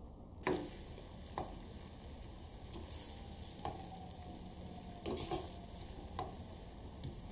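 Sliced onion frying in butter over medium heat in a nonstick pan, a soft steady sizzle, with a plastic spoon stirring and scraping across the pan several times.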